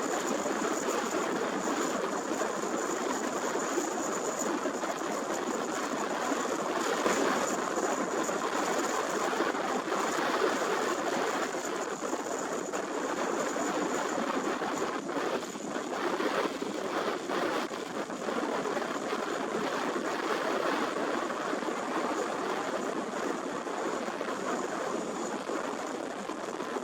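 Strong gusty wind at an airport, a steady rushing noise that swells and eases slightly, with a faint steady high whine.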